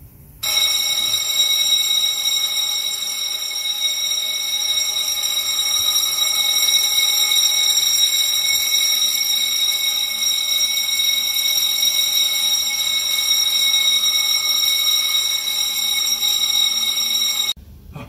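Fire alarm sounding one continuous, steady high-pitched tone, set off by a smoke detector put into alarm with test smoke: the panel is in a fire condition. It starts about half a second in and cuts off abruptly near the end.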